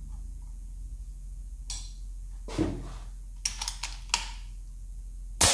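A few light clicks and knocks as the PCP air rifle is handled, then near the end a single sharp, loud shot from the Snowpeak M60B (Umarex Zelos) air rifle firing a 29-grain slug with its hammer adjustment maxed out.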